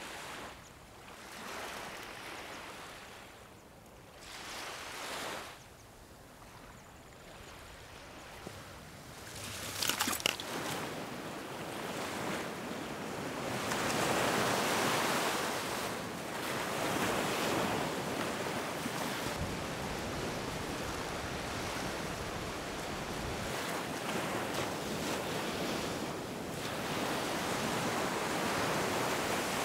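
Sea surf breaking and washing up a sand beach, surging and falling back every few seconds, with wind on the microphone. Fainter in the first third, with a short sharp clatter about a third of the way in, then louder.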